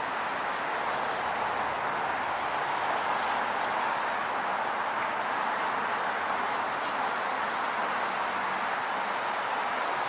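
Steady hum of road traffic on a busy city avenue, with no single vehicle standing out.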